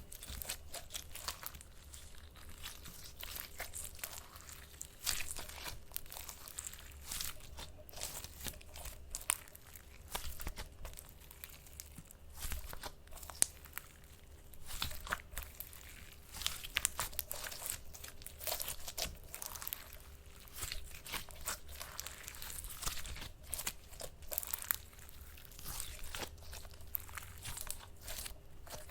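Slime being squeezed, pressed and stretched by hand: dense runs of small crackles and pops, coming in bursts with short lulls between them.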